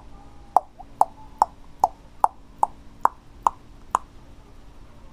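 A run of about ten short, sharp pops, evenly spaced at roughly two a second, stopping about four seconds in.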